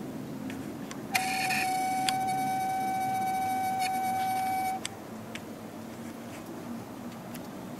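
A steady electronic beep tone, held for about three and a half seconds and cutting off sharply, over a steady low background hum.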